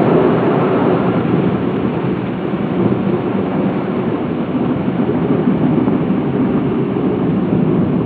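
Automatic car wash machine at work: a loud, steady rushing of water and machinery over a car.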